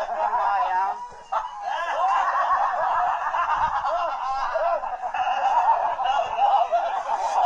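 Several men laughing and chuckling together, many overlapping laughs without a break.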